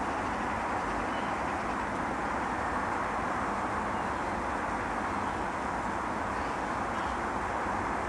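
Steady roar of distant road traffic, with a few faint high chirps of small birds now and then.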